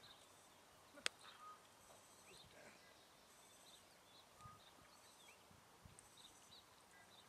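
Near-silent outdoor ambience with faint bird chirps and short trills scattered throughout, and one sharp click about a second in.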